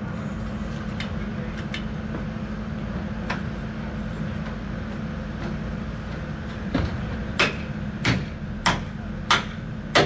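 A hammer striking the steel decking of a fairground ride during assembly. Six sharp, loud blows come about every half second in the last few seconds, after a few lighter knocks. A steady low drone of running machinery continues underneath.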